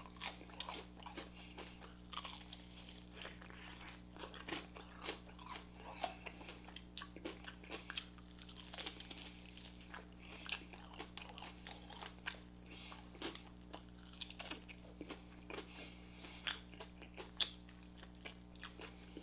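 Close-miked chewing and crunching of fried food, a run of faint irregular crunches and mouth clicks.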